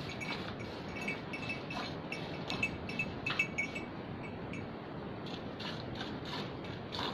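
Hand milking of a Friesian cross cow: jets of milk squirted from the teats in quick alternating strokes, about three a second, into a metal pail already part-full of milk.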